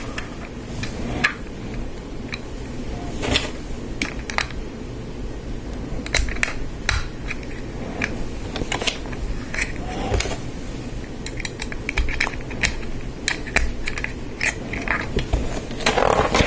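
Lego Technic plastic parts being handled and snapped together: irregular small sharp clicks and light rattles as bushings and pieces are pressed onto axles.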